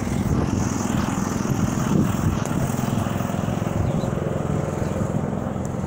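An engine running steadily, a low, even rumble.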